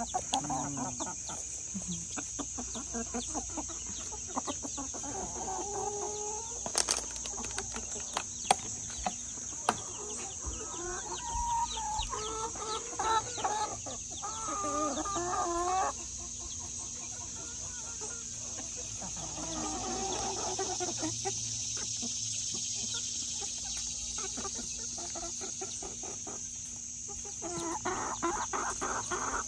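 A flock of brown hens clucking and making soft rising-and-falling calls while they forage, busiest in the first half and again near the end, with a quieter stretch in between. A steady high-pitched hum runs underneath.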